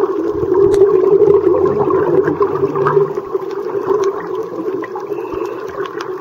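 Muffled underwater noise picked up through a camera's waterproof housing: a steady rushing of water with bubbling and many small crackles from divers' exhaled bubbles.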